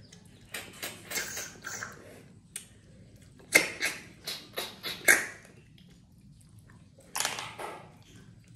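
Snails being sucked out of their shells by mouth: a run of short, noisy slurps in clusters, the loudest in the middle.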